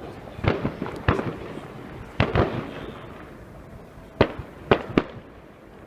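Fireworks going off: about seven sharp bangs at irregular intervals, the louder ones with a short smear of echo after them, and a quick run of three near the end.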